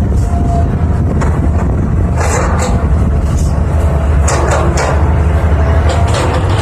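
Excavator's diesel engine running steadily under work, with a few short bursts of scraping and clanking as the machine digs.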